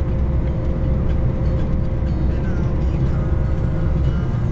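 Steady low road and engine rumble inside a car travelling at speed, with a constant hum running over it.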